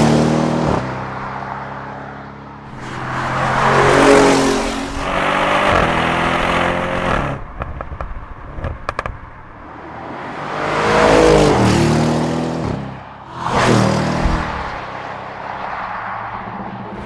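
Audi RS6 Avant C7's twin-turbo 4.0-litre V8 accelerating hard past the microphone several times. The engine note swells and drops in pitch as the car goes by.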